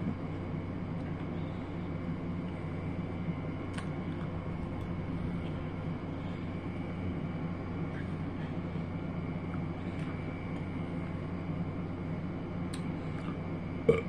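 A steady mechanical drone with a low hum, under a few faint clicks of a metal fork against a ceramic bowl and a sharper click at the very end.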